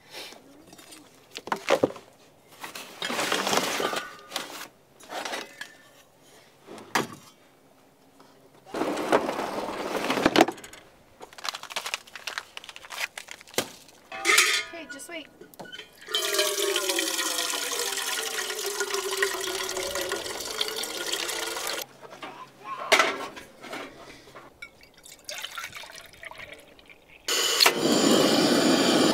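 Cookware and gear handled in a pickup bed's storage drawers, with scattered knocks and clinks. In the middle, liquid is poured steadily for about six seconds. Near the end, a gas camp stove burner is lit and starts hissing steadily.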